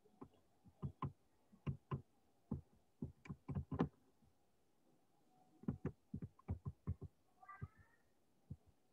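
Computer keyboard clacking in irregular bursts of keystrokes, heard through a video-call microphone, with a brief squeak about three quarters of the way in.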